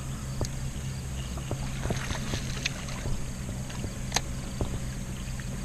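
A boat's steady low electric hum, typical of a trolling motor, with scattered sharp clicks and taps over it, the sharpest about four seconds in.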